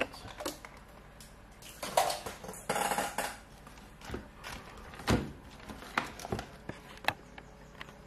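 Small tools and tablet parts being handled on a rubber repair mat: scattered light clicks, taps and clatter, with one louder knock about five seconds in.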